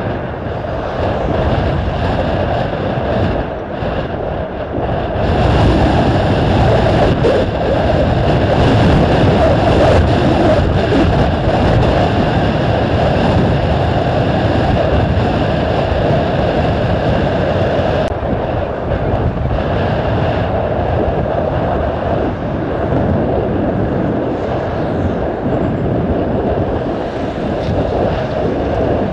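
Airbus A320's jet engines running as the airliner slows on the runway after landing and then taxis: a steady rumble that swells about five seconds in and eases after about twelve seconds.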